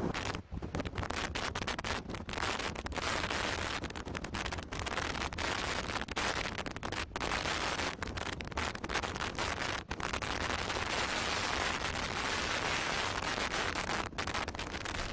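Strong storm wind blowing across the microphone: a rough, crackling hiss with many brief dropouts.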